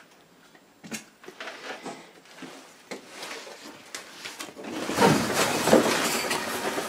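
A door being pushed open, with a few knocks and rustles, then a loud scraping and creaking in the last two seconds.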